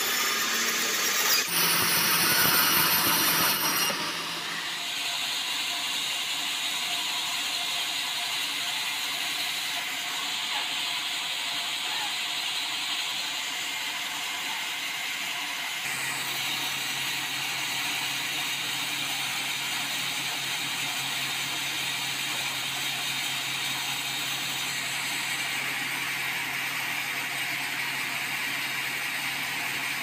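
Vertical band-saw mill running and sawing a large meranti log, a steady mechanical noise with the hiss of the blade through the wood. It is loudest in the first few seconds, with a high whine, then settles to a steadier hiss; a low steady hum joins about halfway through.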